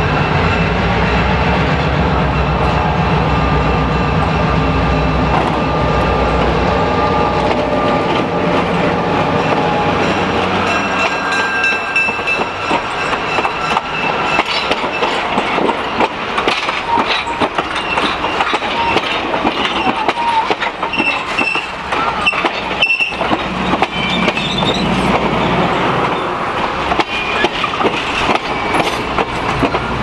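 EMD GP7 diesel locomotive, its V16 two-stroke engine running, passes close with a strong low rumble for about the first ten seconds; then the passenger coaches roll by, wheels clicking over the rail joints with short high squeals.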